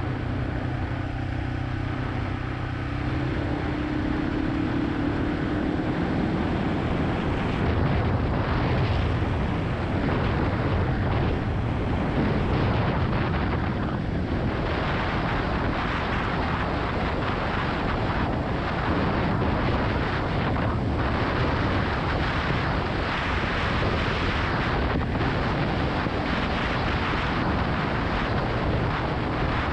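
Yamaha XT250's single-cylinder engine running on the move, buried under heavy wind rush on the microphone. The engine pitch rises a few seconds in as the bike accelerates.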